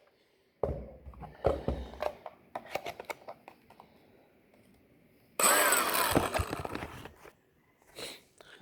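Clattering knocks from a cordless angle grinder being handled. About five seconds in, the grinder is switched on, runs for a second or so, and winds down.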